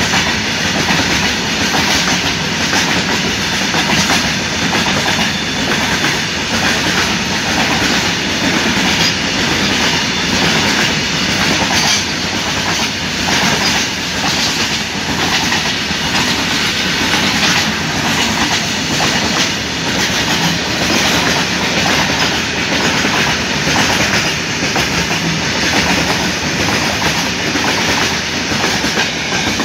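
Wheels of a long freight train's wagons rolling past at speed: a steady, loud rumble with fast clickety-clack over the rail joints. It starts to thin out at the very end as the brake van goes by.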